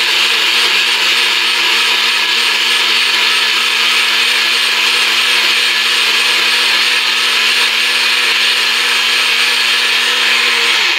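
Nutribullet blender motor running steadily at full speed, puréeing a liquid salsa of boiled tomatillos and chiles.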